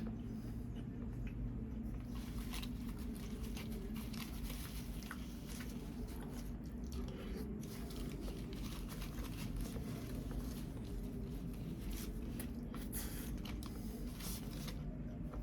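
Close-miked chewing and biting of khao tom mat, a sticky rice and bean dessert wrapped in banana leaf: wet, sticky mouth sounds with many small clicks and crinkles, over a steady low hum.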